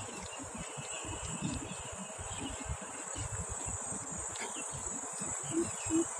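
Insects shrilling in a steady, high, continuous drone, typical of crickets or cicadas.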